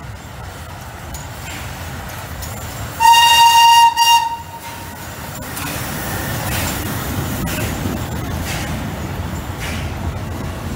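Whistle of the FS Class 640 steam locomotive 640.003, one loud single-note blast of about a second followed by a short second toot, over the low rumble of the passing train. Afterwards the train runs by with a regular beat about once a second.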